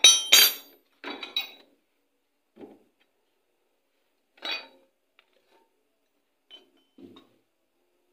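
Metal hand tools and loose metal parts clinking and clattering against a washing machine's gearbox and pulley assembly. Two loud clatters come at the start, followed by a few fainter, scattered knocks.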